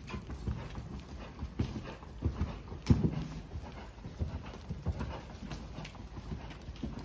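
A horse's hooves striking the ground as it is worked: an uneven series of dull thuds, the loudest about three seconds in.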